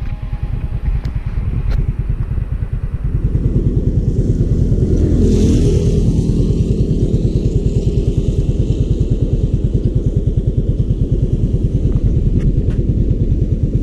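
Yamaha Mio Gravis scooter's engine running: a loud low rumble with a fast, even pulse, building over the first few seconds and then holding steady.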